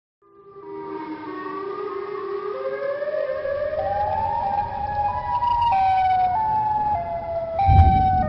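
Two-tone siren alternating between a high and a low note, fading in and climbing in pitch step by step over the first few seconds, over a low rumble; a louder low thump comes near the end.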